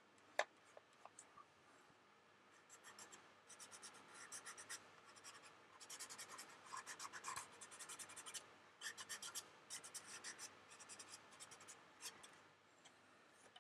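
Fingertip rubbing weathering pigment onto the painted wing of a plastic scale model: faint, quick, scratchy rubbing strokes that start a couple of seconds in and keep going in short runs.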